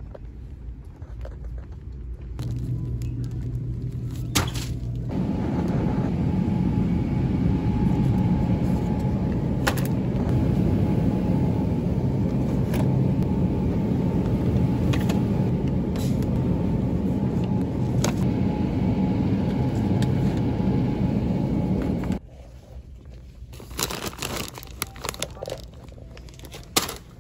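A vehicle engine running with a low, even rumble, with a few sharp clicks or knocks over it. It drops away to a quieter stretch with more clicks near the end.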